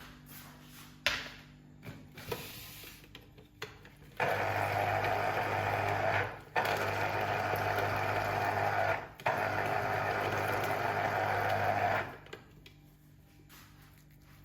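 Small electric kitchen motor of a juicing appliance making orange juice, running steadily for about eight seconds in three stretches broken by two brief stops, after a few light knocks of handling.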